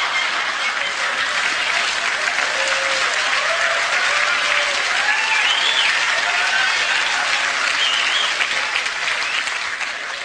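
Live audience applauding after a punchline, a steady wash of clapping with a few voices calling out over it, easing off slightly near the end.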